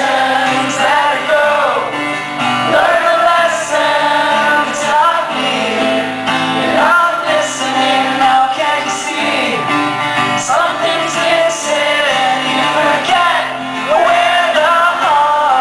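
Live song on a strummed acoustic guitar with a male lead vocal, the audience singing along.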